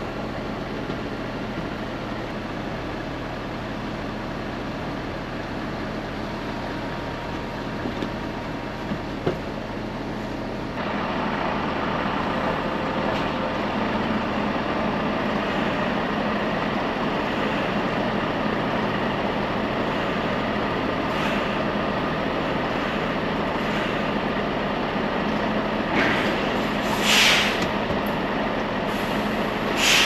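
Steady diesel engine drone around a truck with a refrigerated trailer. It gets louder about eleven seconds in, and there is a short hiss near the end.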